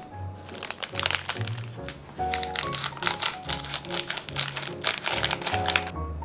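Scissors cutting open a plastic puff-pastry package, the film crinkling and crackling in a quick run of sharp snips, over background music.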